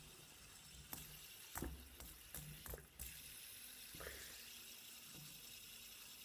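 Faint steady hiss with several sharp clicks and soft taps in the first three seconds, from plastic fidget spinners being flicked and handled.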